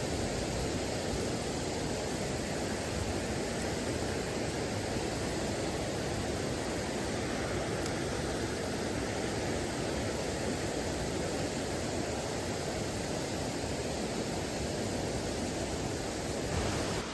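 Fast-flowing mountain stream rushing, a constant even hiss of water with no change.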